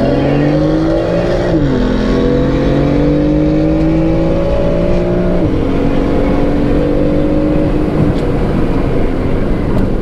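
Car engine at full throttle, accelerating hard through the gears: its pitch climbs, then drops sharply at an upshift about one and a half seconds in and again at about five and a half seconds. It settles to a steadier note in the last couple of seconds.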